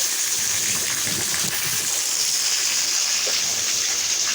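Water rushing over the rocks of a stream, a steady hiss.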